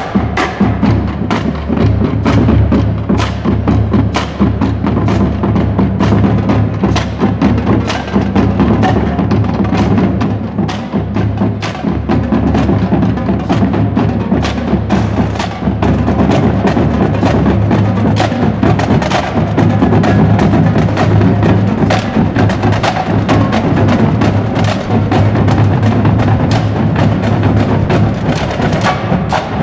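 A marching drumline playing a cadence: rapid, sharp snare-drum strokes over steady bass-drum beats, loud throughout.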